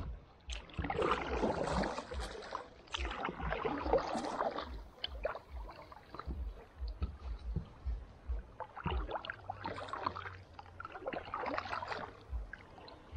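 Kayak paddle strokes splashing through the water, two in the first few seconds and two more near the end, with light low knocks between them.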